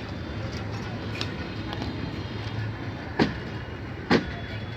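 Train running on the rails: a steady low rumble, with two sharp clanks about three and four seconds in as the wheels strike rail joints.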